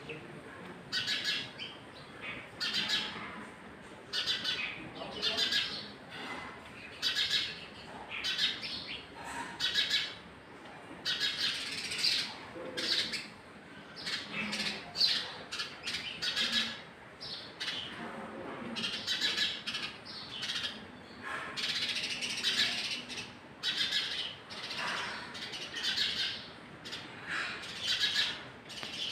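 Birds chirping: short high calls repeated in quick succession, about one or two a second, without a break.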